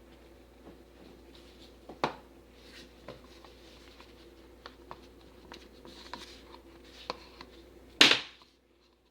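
Small clicks and light taps of plastic pouring cups and the mold while soap batter is poured, over a faint steady hum, with a sharper knock about two seconds in. Near the end comes a short, loud burst of noise, the loudest sound here.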